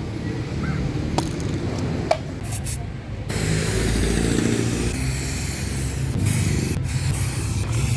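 Aerosol spray paint can hissing as paint is sprayed. The hiss starts suddenly about three seconds in and carries on steadily, after a couple of light clicks.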